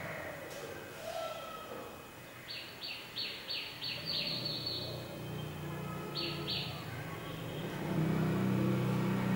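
Bird chirping: a quick run of about eight short, falling chirps, a pause, then two more. Under it there is a low rumble, like a vehicle engine, that grows louder near the end.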